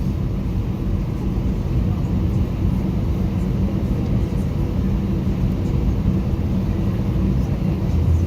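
Airbus A320 cabin noise: a steady low rumble of the engines and airflow heard from inside the passenger cabin.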